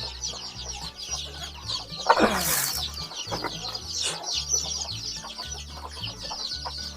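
A flock of country chickens: many young chicks peeping in a dense stream of high-pitched chirps, with hens clucking. A louder hen squawk sounds about two seconds in.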